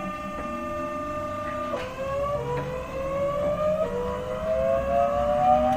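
Class 465/9 Networker's GEC Alsthom GTO-VVVF traction inverter and motors whining as the train pulls away. A set of steady tones drops in pitch about two seconds in, then several whining tones climb steadily and grow louder as the train gathers speed.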